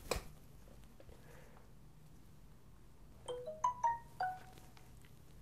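A mouse click, then about three seconds later a mobile phone's incoming text-message notification tone: a quick run of five or six short chime notes. It signals the SMS carrying the requested login code arriving.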